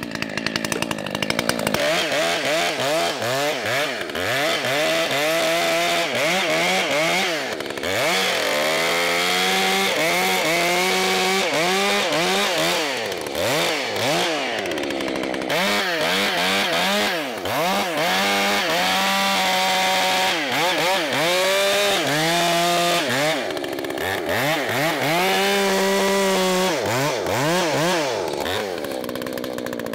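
Two-stroke chainsaw, freshly sharpened with a new method, running at high revs and cutting wood. Its pitch keeps sagging and climbing as the chain loads up in the cut and frees again.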